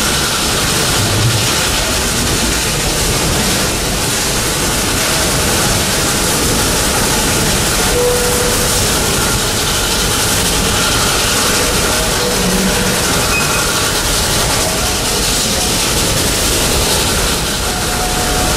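Open passenger car of a narrow-gauge steam train running along the track: the steady, even noise of the moving train and its wheels on the rails.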